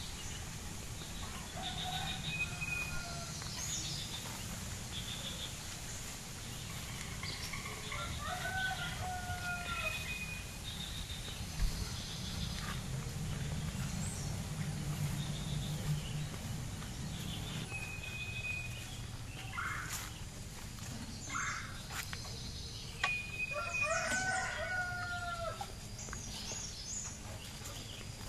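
A rooster crowing twice, once about eight seconds in and again near the end, with short high chirps of other birds scattered between.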